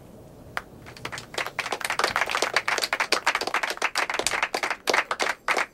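Fast, irregular clicking of typing on a computer keyboard, beginning with a single click about half a second in and then going on steadily.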